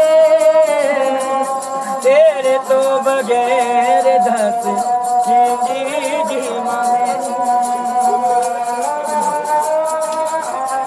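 A long-necked folk string instrument playing a wavering melody over steady sustained tones, a wordless instrumental passage between sung verses.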